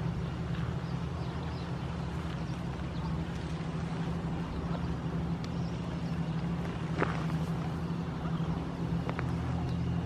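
Steady low mechanical hum, like a distant engine, with one sharp click about seven seconds in.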